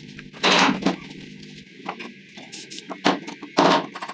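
Clunks, knocks and rattles of old metal scooter parts being handled and pulled apart during disassembly. The loudest come about half a second in, and again twice in quick succession a little after the three-second mark.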